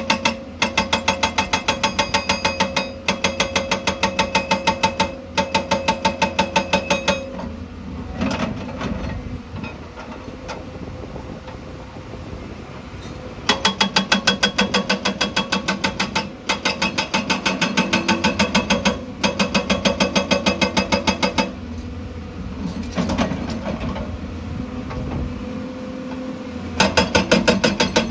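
Excavator-mounted hydraulic rock breaker hammering stone in rapid, evenly spaced blows. It runs in three spells, from the start to about seven seconds, from about thirteen to twenty-one seconds, and again near the end. Between the spells the machine's engine runs with occasional knocks.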